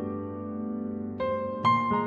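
Background piano music of held notes, with new notes struck about a second in and again near the end.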